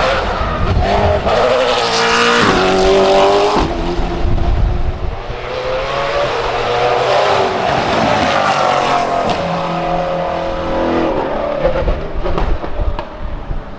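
Lotus Elise GT1 race car's 5.7-litre Corvette V8 running hard on track, its pitch climbing under acceleration and breaking at gear changes, then rising and falling again as the car passes. It grows somewhat quieter near the end.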